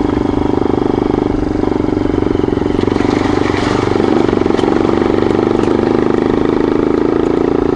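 Yamaha XT dual-sport motorcycle's four-stroke engine running steadily at an even riding speed.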